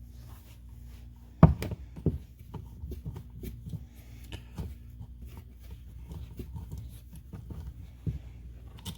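Metal parts of an air impact wrench being handled during disassembly: scattered clicks and knocks as a part is worked out of the housing, the loudest two about one and a half and two seconds in. A steady low hum runs underneath.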